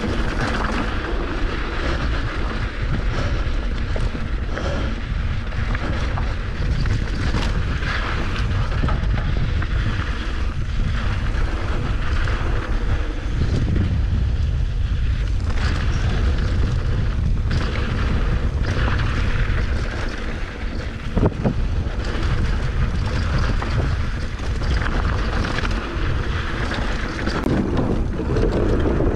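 Wind rushing over the microphone of a mountain bike's camera, with the steady rumble of the tyres on a rocky dirt trail and occasional sharp knocks as the bike hits rocks and bumps.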